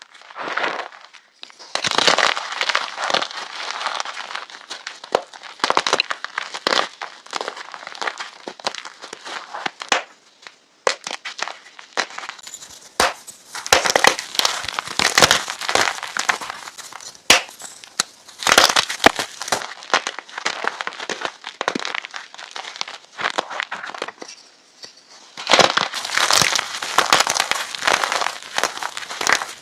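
Crisp chalk sticks crunching and crumbling in dense bursts of crackling and sharp snaps, with a couple of short lulls.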